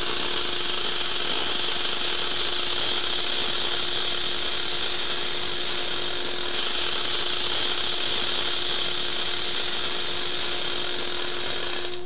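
Gas metal arc (MIG) welding of aluminum sheet with ER4043 wire under argon shielding gas: the arc crackles steadily in short-circuiting transfer, less frequent and less harsh than at the lowest setting, a sign the voltage is still a little low. The arc cuts off abruptly at the very end.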